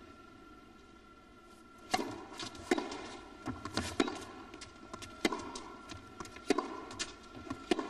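Tennis ball struck by racquets in a baseline rally, one sharp hit about every second and a quarter, beginning about two seconds in with the serve after a hush, with fainter ball bounces on the court between the hits. The hits ring in a large indoor hall.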